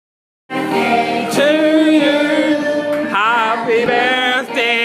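Singing with music, cutting in abruptly about half a second in and carrying on steadily.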